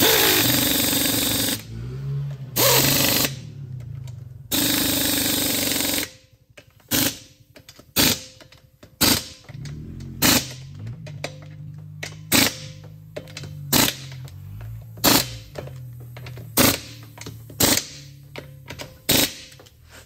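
Pneumatic butterfly air ratchet running in three bursts, nipping up the sump bolts of a Briggs & Stratton engine. After that, sharp clicks come about once a second.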